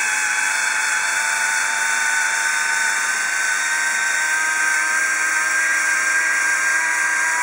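Instyler rotating hot iron running, its small motor turning the heated barrel with a steady whine as it is drawn slowly through a section of hair.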